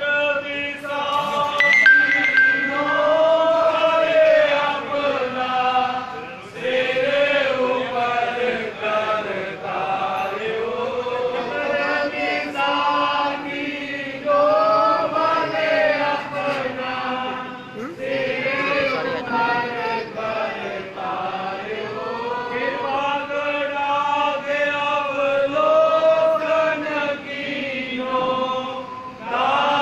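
Sikh devotional chanting: voices singing the same repeated phrases together, with short breaks between phrases.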